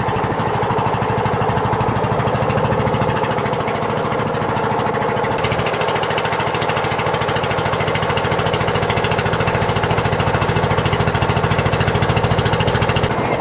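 Engine of a motorized outrigger boat (bangka) running steadily under way, a rapid even chugging beat that grows a little heavier about five seconds in.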